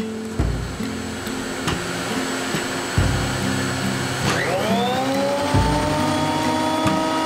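A benchtop thickness planer's motor is switched on about four seconds in and spins up in a rising whine that then holds steady. Background music with a regular low beat plays throughout.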